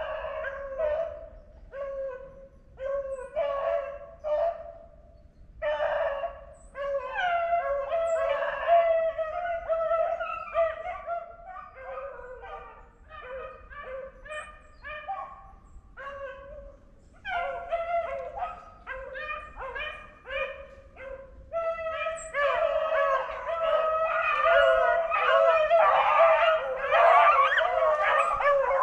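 A pack of beagles baying on a rabbit's trail: choppy, broken yelps and bawls that grow louder and fuller from about three-quarters of the way in as several voices overlap.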